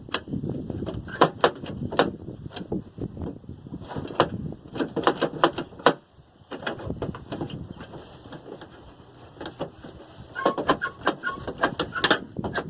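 Repeated clicks and metallic clanks as the pickup's tailgate latch parts are handled and fitted by hand. There is a short lull about halfway, then a quicker run of clicks with some metallic ringing near the end.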